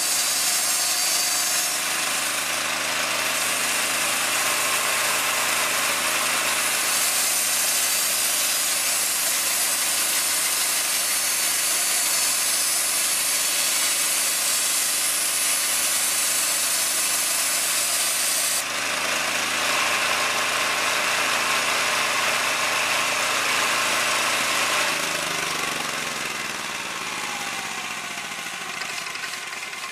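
Large old C.H. Wood Company resaw bandsaw, driven by an 11 horsepower motor, running loudly while it cuts through a heart pine board, with a steady high hiss. The hiss eases off about 19 s in, and from about 25 s the machine is switched off and coasts down, its pitch falling and its sound fading.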